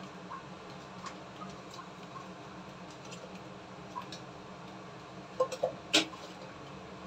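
Faint scattered ticks over a steady low hum, then a few small knocks and a sharp metal clink about six seconds in as a fork is picked up from beside a cup on a kitchen counter.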